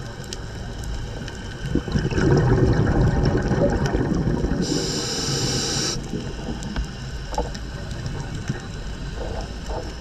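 Scuba diver's regulator exhalation: bubbles rushing and gurgling past the underwater camera, loudest from about two seconds in until about six seconds, with a brief hiss just before the bubbles fade, over a steady low underwater rumble.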